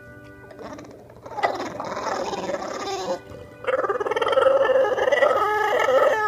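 An animal's drawn-out, wavering cries, twice, the second longer and louder, over faint background music.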